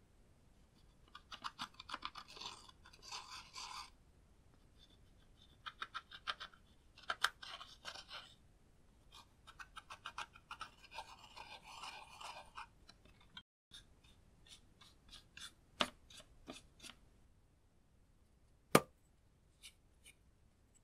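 Scratchy scraping of pressed eyeshadow being dug out of a plastic palette's pans with a small pointed tool, in three spells of a few seconds each. After a short break come scattered light clicks and taps, with one sharp click near the end.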